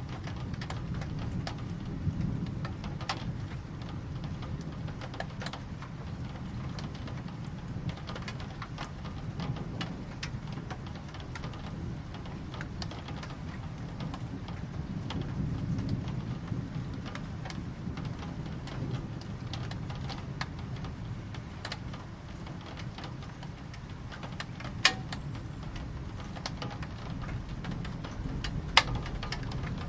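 Steady rain with a continuous low rumble underneath, individual drops ticking close by, and two sharper drop hits near the end.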